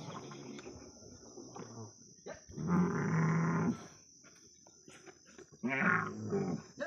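A camel calling twice: a held call lasting about a second, then a shorter, wavering call near the end.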